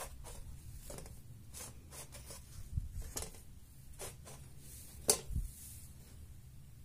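Light taps, scrapes and knocks as baked buns are picked off a metal baking tray and set on a wire cooling rack, the sharpest knock about five seconds in.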